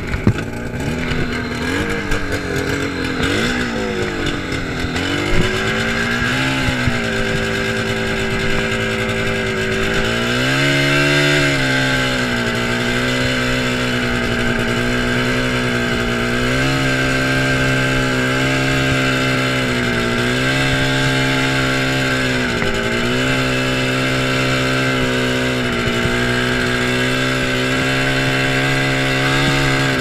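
1979 Ski-Doo Blizzard 5500 snowmobile's two-stroke engine running. Its pitch wavers up and down at low revs for about ten seconds, then rises and holds steady while riding, dipping briefly every few seconds.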